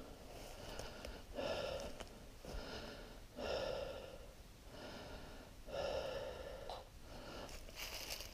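A person breathing hard through the mouth while walking, a breath in and a louder breath out about every two seconds.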